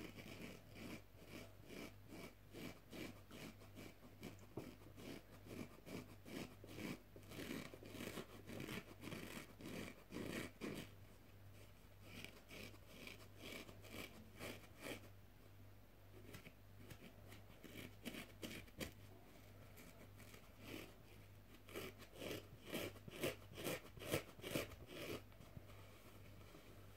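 Fingertips and nails scratching a foam bath sponge close to the microphone, in quick repeated strokes at about three a second. The strokes thin out and soften in the middle, then pick up again more loudly near the end.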